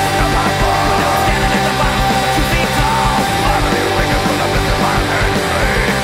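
Loud punk rock song played by a full band, with driving drums and guitars.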